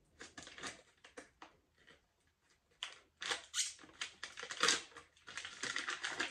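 Crinkling and crackling of an MRE candy pouch being worked open by hand: irregular sharp crackles, sparse at first, then denser and louder after a short lull about halfway through.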